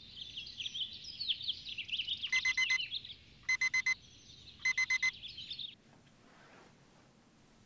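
Electronic alarm beeping in three bursts of four quick beeps, about a second apart, over a busy chorus of birds chirping. Both stop together about six seconds in, leaving faint room tone.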